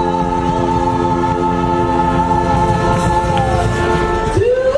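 Vocalist and brass street band holding one long sustained chord for about four seconds. The lower notes drop out first and the top note breaks off near the end.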